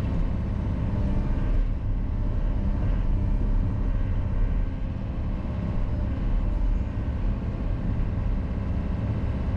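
Sany SY60 mini excavator's diesel engine running steadily under digging load, heard from inside the cab as the boom and bucket work a trench.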